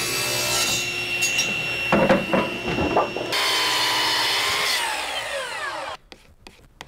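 Table saw ripping a walnut board with a steady whine, then a few knocks around two seconds in. A little over three seconds in, a Festool Kapex sliding miter saw starts and cuts, and its whine falls as the blade spins down near the end.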